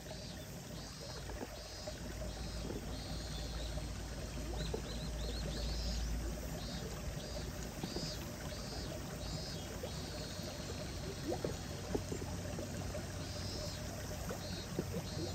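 Rural outdoor ambience: a steady hiss with short, high-pitched calls repeating about every two-thirds of a second, and a low rumble that fades out about six seconds in.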